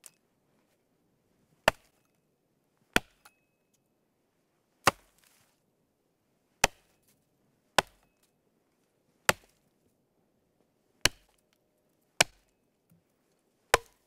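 An axe chopping wood: about nine sharp blows at an uneven pace, one to two seconds apart.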